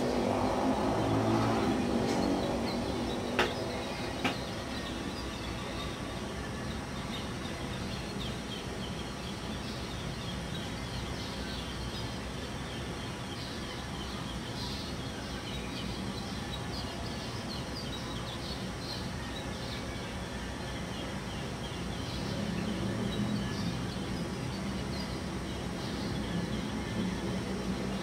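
Birds chirping over a steady hum of road traffic. A vehicle passes and fades away over the first few seconds, two sharp clicks follow soon after, and another vehicle draws near about three-quarters of the way in.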